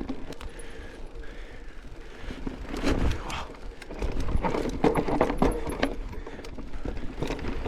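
Mountain bike being ridden over rough trail: irregular knocks and rattles from the tyres and frame over rocks and roots, growing busier about halfway through, over a low rumble of wind on the microphone.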